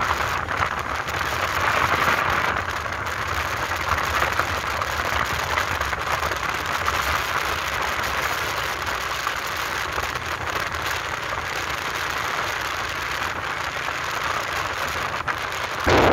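Motorbike riding along a road at speed: a steady rush of engine, tyre and wind noise with a low rumble underneath.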